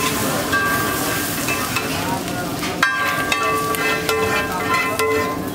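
Egg mixture sizzling on a hot flat griddle while a metal spatula scrapes and stirs across the metal surface, with a sharp clank about three seconds in.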